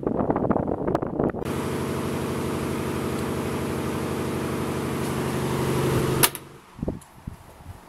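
A 1984 Galaxy 16-inch table fan running: first air gusting against the microphone, then, from about a second and a half in, a steady rush of air with an even motor hum. Near the end the sound cuts off abruptly with a sharp click, leaving a quiet background with a few soft knocks.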